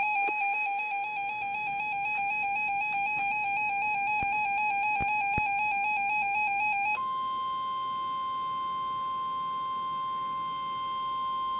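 Weather-radio alert tones: a rapidly warbling electronic beep, then about seven seconds in a switch to the steady 1050 Hz NOAA Weather Radio warning alarm tone, signalling that a warning message is about to be read.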